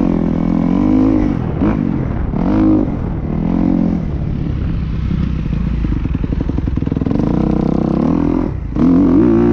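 Motocross bike engine heard from on the bike, revving up and down as the throttle is worked, then running at low revs with an even pulsing through the middle. About eight and a half seconds in it drops out briefly, then picks up again with quick rises and falls in pitch.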